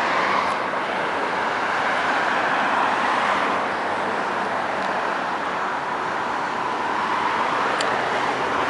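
Steady road-traffic noise, a continuous hiss that swells and eases slightly, with a faint tick near the end.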